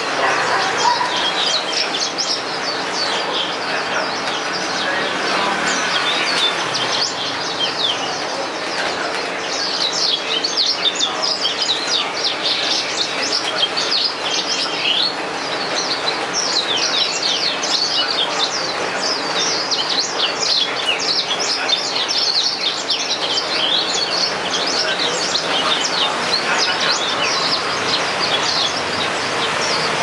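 Yellow-fronted (Mozambique) canary singing a fast, continuous twittering song of many short high notes, busiest in the second half, over a steady background hiss.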